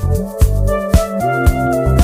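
Background music: sustained keyboard chords over a steady drum beat, about two beats a second.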